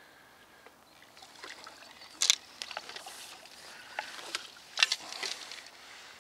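Carbon fishing pole being broken down hand over hand, its sections giving sharp clicks and knocks, two of them loud. Short rushes of splashing water come between them as a hooked carp is drawn in toward the landing net.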